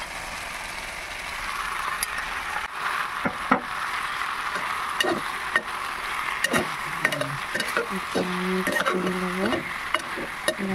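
Marinated chicken pieces sizzling in hot oil with half-cooked potatoes and tomatoes, while a steel slotted spatula stirs them. The spatula scrapes and clinks irregularly against the aluminium pot.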